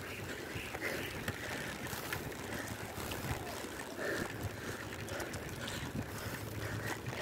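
Pinarello Dogma road bike rolling over wet concrete: steady tyre hiss on the damp surface with wind on the microphone.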